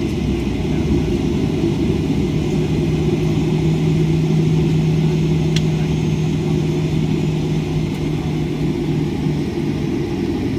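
Boeing 737-800 cabin noise over the wing while the jet taxis, its CFM56-7B engines running at low thrust: a steady low rumble with an even hiss above it and a steady low hum that drops away near the end.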